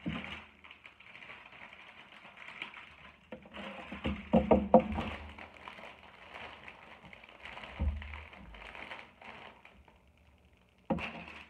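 Crinkling and rustling of plastic instant-noodle packets being picked up and handled, loudest about four to five seconds in, with a thump near eight seconds and a sharp click shortly before the end.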